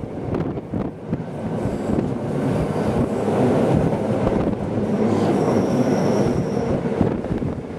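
Rhaetian Railway train running, heard at an open carriage window: a steady rumble of wheels on rails. About five seconds in, a high wheel squeal rings out for a second and a half.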